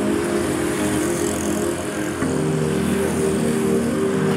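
Road traffic: motorbike and car engines and tyre noise passing on a road.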